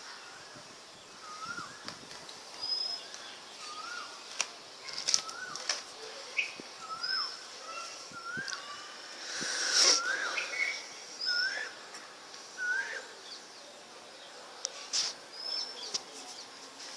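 Small birds chirping: short rising-and-falling call notes repeat roughly once a second, with thinner high notes in between, over a few scattered knocks.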